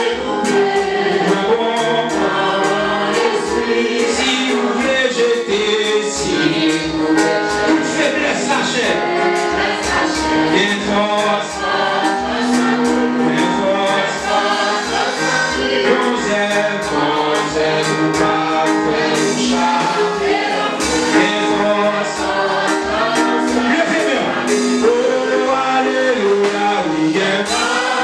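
A church congregation singing a gospel worship song together over a steady, driving beat.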